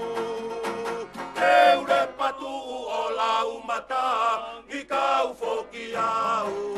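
Live Tongan string-band music for a tau'olunga dance: a group of men singing together to acoustic guitars, with a long held note at the start and another near the end.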